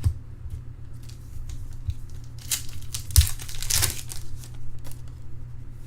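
Trading card pack wrapper and cards being handled: crinkling and tearing of the wrapper with light clicks, loudest in two rustles near the middle.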